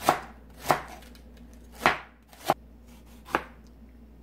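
Chef's knife slicing vegetables on a plastic cutting board: five unevenly spaced strokes, each ending in a sharp knock of the blade on the board.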